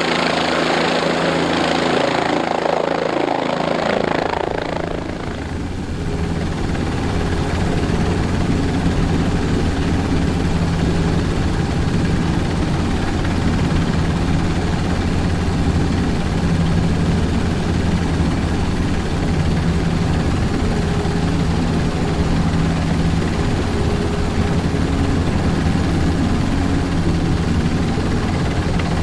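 A large engine running steadily with a low, even hum, after about five seconds of louder rushing noise at the start.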